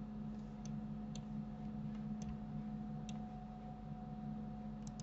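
Faint clicks of a computer mouse, about half a dozen at irregular intervals, over a steady low electrical hum.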